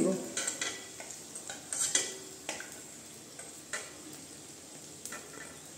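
Potato pieces sizzling in hot mustard oil in a metal kadai, with a wooden spatula scraping and tapping against the pan every second or so as the fried pieces are scooped out. The strokes come more often in the first two seconds and thin out toward the end.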